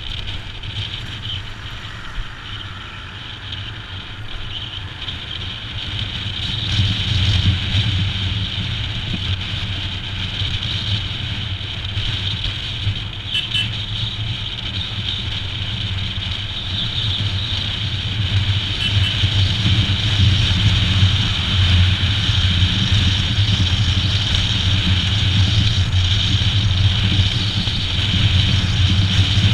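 Royal Enfield Himalayan's single-cylinder engine running steadily on the move, with wind and road noise, growing louder about six seconds in.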